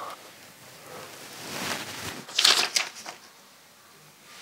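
Paper rustling and crinkling as a sheet is handled, in a short cluster of crackly bursts about two seconds in.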